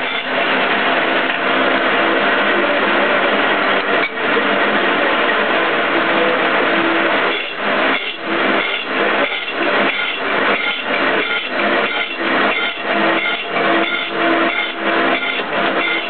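Horizontal milling machine's slitting saw cutting through steel plate: a loud, harsh, steady cutting noise that from about halfway through pulses about twice a second.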